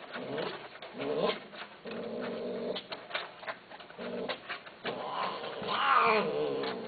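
Long-haired cat meowing repeatedly in low, drawn-out calls, about five in all, the loudest and most wavering about six seconds in.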